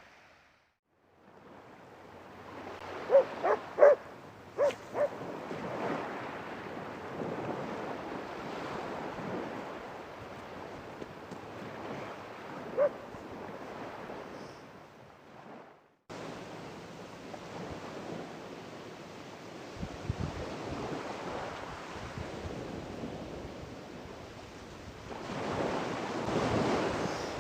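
Surf washing onto the beach, with wind buffeting the microphone and swelling louder near the end. A dog gives a quick run of short, sharp barks about three to five seconds in, and one more a few seconds before the midpoint.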